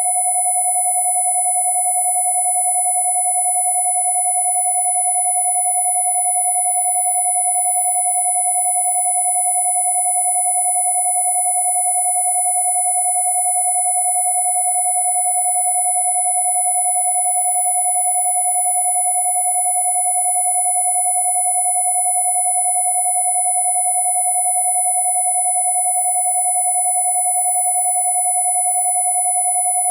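Two steady electronic sine tones sounding together without change, a mid-pitched 727 Hz tone and a very high 10,000 Hz tone, played as a Rife frequency session.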